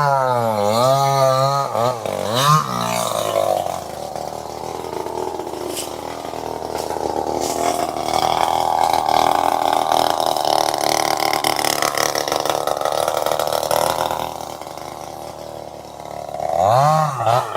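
Chainsaw engine running with a steady, dense buzz from about four seconds in, easing off near the end. At the start and again just before the end, a wavering pitched tone swings up and down about twice a second.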